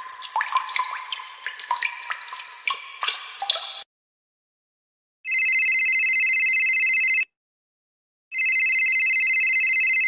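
Water dripping and plinking in quick, uneven drops for the first few seconds. After a short silence, a high electronic ringing tone with a fast trill sounds twice, about two seconds each, a second apart.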